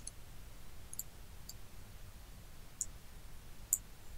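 Computer mouse clicks, about five short, sharp ones spaced irregularly a second or so apart, over a faint low room hum.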